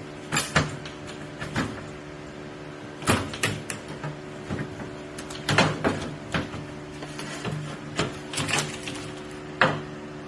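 Irregular knocks and clicks from hands and tools working on a car's sunroof trim, about a dozen sharp taps scattered through, over a steady low hum.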